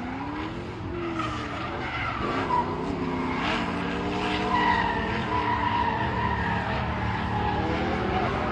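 Cars sliding around a track corner: engines revving up and down, with long tyre squeal in the middle.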